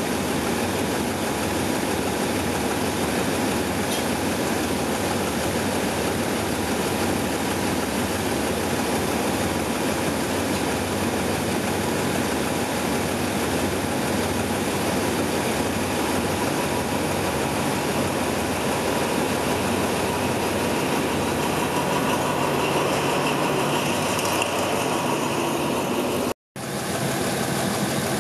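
Alsthom AD24C diesel-electric locomotive with its engine running steadily at low power, a continuous heavy rumble. A high squeal comes in for a few seconds near the end.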